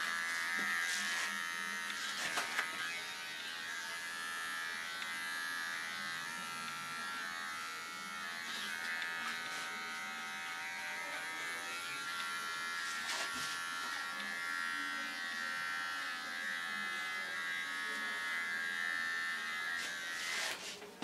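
Electric hair trimmer buzzing steadily as it trims very short hair around the ears and neckline, with a couple of light clicks along the way. It switches off near the end.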